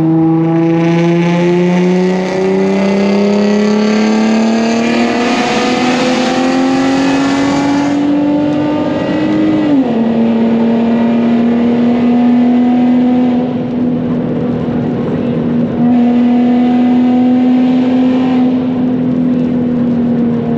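Nissan 370Z's 3.7-litre V6 through a straight-piped titanium exhaust, pulling hard in one gear with its note climbing steadily for about ten seconds, then dropping sharply at an upshift and holding a steady drone under load for the rest, easing off slightly near the end.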